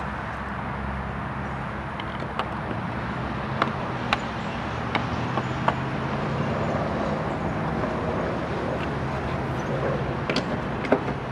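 A handful of short, sharp plastic clicks and taps, scattered irregularly, as a 2005 Chevy Silverado's tail light assembly is handled and pushed back into its mounting. They sit over a steady low background rumble.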